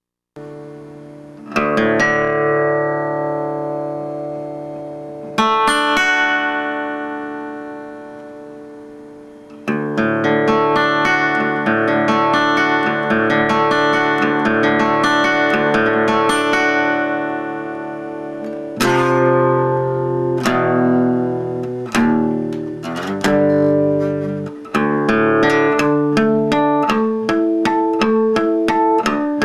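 Guitar music: a few single strummed chords left to ring out and fade, then steady strumming with chord changes, moving to quicker picked notes near the end.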